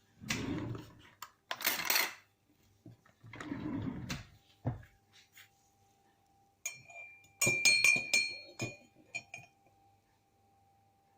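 Kitchen utensils being handled: three short noisy scraping or rattling bursts, then from about halfway through a quick run of sharp, ringing clinks of a utensil against a cup or dish.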